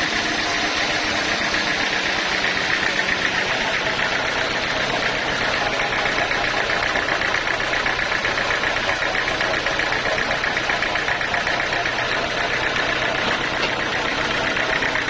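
Sawmill saw and its drive engine running steadily: a dense, even machine noise with a fine, rapid rattle and a strong high hum.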